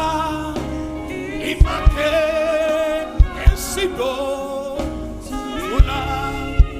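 Gospel worship music with a singing voice holding wavering notes over sustained chords, and a few soft low drum hits.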